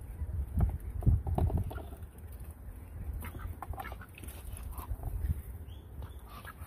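Domestic ducks quacking in short scattered calls, with a low rumbling, thudding noise about a second in.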